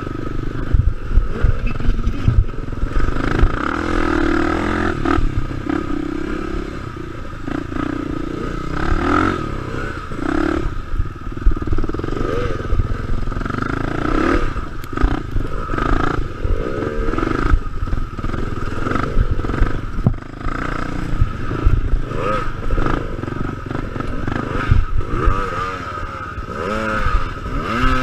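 Suzuki dual-sport motorcycle's engine running at low speed, the throttle opened and closed over and over so the pitch keeps rising and falling. Frequent clattering knocks come from the bike as it bounces through deep ruts.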